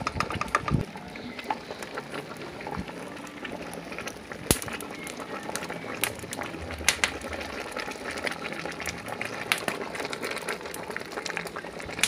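Pot of bean stew boiling hard over a wood fire, bubbling steadily, with scattered sharp clicks throughout and a few louder ones.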